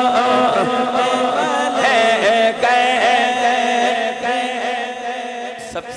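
Unaccompanied devotional singing of a naat: long, wavering held notes with slow melodic bends, easing somewhat in volume in the last couple of seconds.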